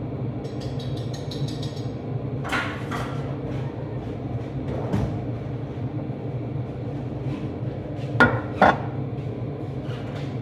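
Several sharp knocks and clinks of kitchenware being handled, in two pairs with the loudest pair near the end, over a steady low kitchen hum.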